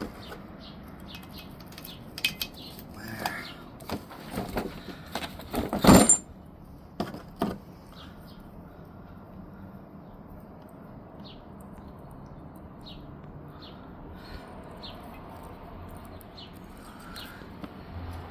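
Metal parts of a hydraulic crimper being handled and refitted during reassembly: a series of clicks and knocks, the loudest a sharp clack about six seconds in, then mostly quiet with faint light ticks.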